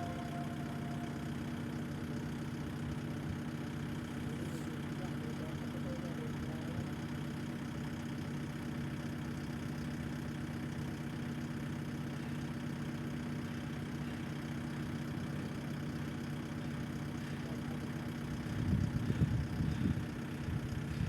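Engine idling steadily, with a brief, louder, uneven rumble near the end.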